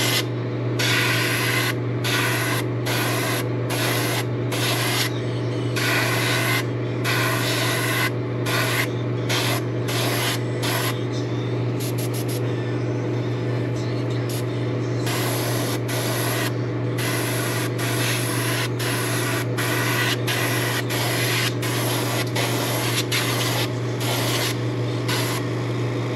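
Airbrush spraying white base-coat paint through scale netting onto a lure blank: a hiss of air and paint that cuts on and off as the trigger is pressed and released, mostly in short bursts of about a second, with a longer unbroken spray near the middle. A steady low hum runs underneath.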